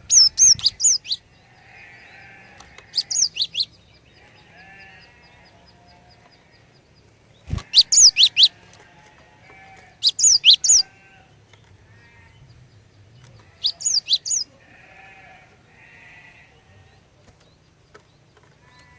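Female cinereous tit (glatik batu) calling. Five bursts of three to five sharp, high chirping notes come a few seconds apart, with fainter harsh, buzzy calls between them.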